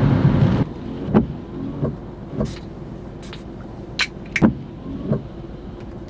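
Rainwater pouring down onto the car's roof in a heavy rush that cuts off suddenly about half a second in. After that, large drops knock irregularly on the roof, heard from inside the cabin.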